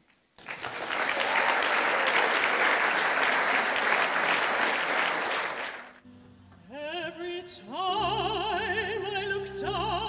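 Audience applause for about six seconds, which cuts off suddenly. A moment later a woman begins singing in an operatic style with a wide vibrato, accompanied by a grand piano.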